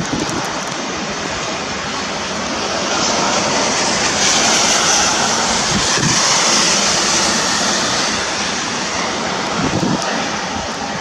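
Heavy downpour and gusting wind in a spring rainstorm, a steady rushing hiss that swells louder in the middle. Wind buffets the microphone with low thumps near the end.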